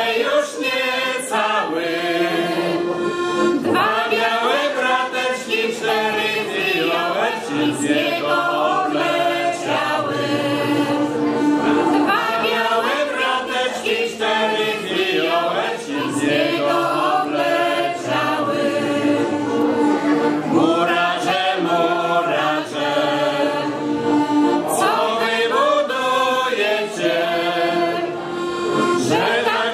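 Folk choir of men's and women's voices singing a folk song together.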